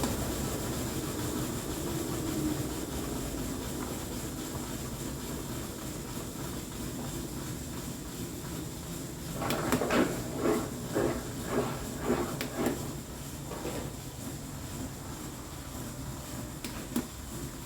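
Washing machine running in spin mode, a steady whirring hiss that slowly eases off. About ten seconds in comes a run of about eight knocks, roughly two a second, then a single click near the end.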